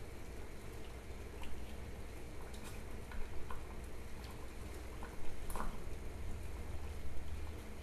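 Water bubbling in a small stainless saucepan on a lit gas burner, with scattered small pops and ticks over a low steady hum.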